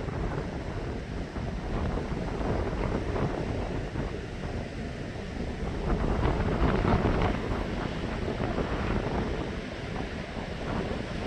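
Strong wind buffeting the microphone in gusts, with a deep rumble, swelling loudest about six to seven seconds in.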